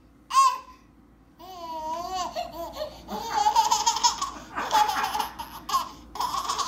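Baby laughing: a short squeal, then a wavering babbling cry, then from about three seconds in repeated bursts of laughter.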